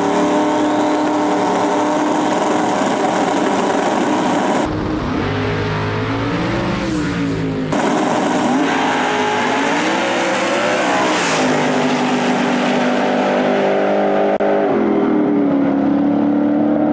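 Two drag-race engines, one of them a twin-turbo big-block Ford in a Fox-body Mustang, revving on the starting line with the pitch repeatedly climbing and falling, then held high as the cars launch and run down the track.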